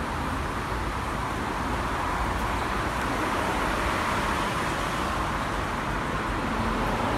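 Steady noise of road traffic passing continuously, engines and tyres blending into an even hum with no single vehicle standing out.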